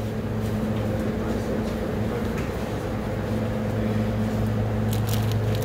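Steady low machine hum of supermarket refrigerated display cases, with a few faint clicks about five seconds in.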